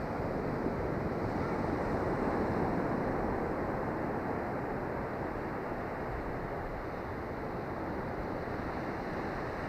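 Ocean surf washing up a sandy beach: a steady rushing wash that builds over the first few seconds and then slowly eases.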